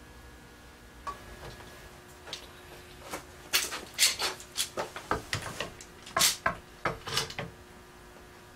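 Metal bar clamps being handled, slid and tightened onto a glued-up stack of wooden boards: a run of sharp clicks and clanks that starts about a second in and stops a second before the end, loudest around the middle.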